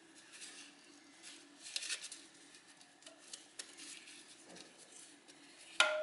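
Faint scrapes and light clicks of metal as a connecting rod bearing shell is worked loose by hand in a Ford Zetec engine's crankshaft area. Near the end a metal part strikes with a sharp clink that rings on as a clear tone, fading slowly.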